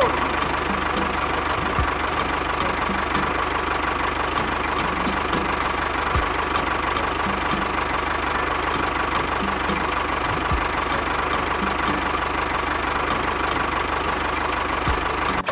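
Tractor engine running steadily with a regular knocking beat.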